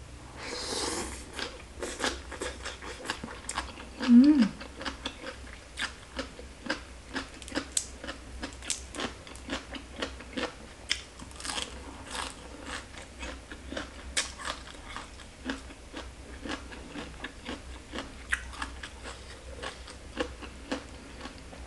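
Close-miked eating: wet chewing and crunching of green papaya salad and raw leafy vegetables, with many sharp mouth clicks and smacks throughout. There is a short hum about four seconds in.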